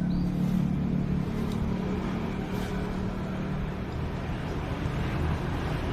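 An engine running steadily with a low drone, with a few faint clicks.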